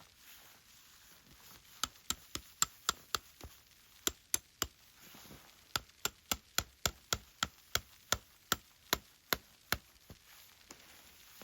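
Sharp knocks in three quick runs, about four a second, starting about two seconds in, with a short break after the second run.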